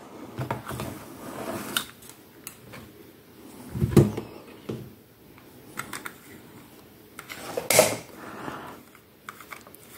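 Handling noise on a workbench: clicks and knocks of a plastic lamp socket being picked up and an LED bulb screwed into it, with two louder knocks, one about four seconds in and one near eight seconds.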